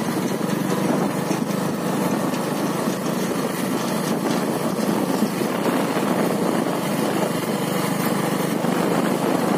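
Motorcycle engine running steadily while riding, mixed with a steady rush of wind noise.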